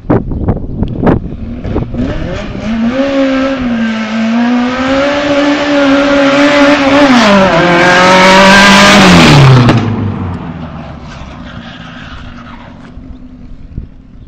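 Sharp cracks in the first second, then the VAZ 2108's tuned 16-valve four-cylinder on four individual throttle bodies revving hard as the car accelerates up the road. The high engine note climbs and holds, drops at gear changes, is loudest as the car draws near, then falls away as it comes off the throttle and slows.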